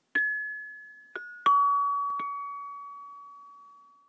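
A short intro jingle of four struck, bell-like chime notes: three stepping down in pitch within about a second and a half, the lowest the loudest and ringing out longest, then a fainter higher note over it.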